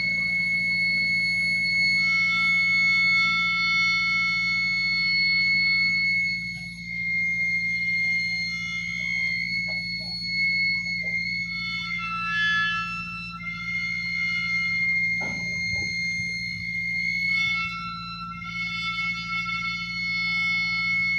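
Steel sections of a telescopic mobile telecom tower squealing as the mast extends: sustained high whistling tones that hold for seconds and shift in pitch every few seconds. Underneath is a steady hum from the motor driving the lift.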